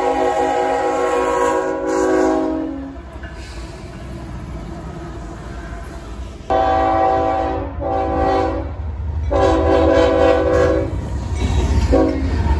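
Diesel freight locomotive's multi-chime air horn sounding a chord: one blast that stops a few seconds in, then after a pause three blasts in a row, the last the longest, and a brief toot near the end. Beneath it runs the low rumble of the passing freight train.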